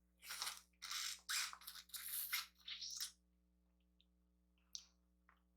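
Close-miked eating sounds from a seafood boil of shrimp: a quick string of short, crackly noisy bursts over the first three seconds, then a few faint clicks.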